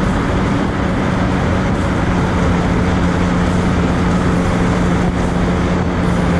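Jet ski engine running steadily under way, a constant low drone over a rushing hiss.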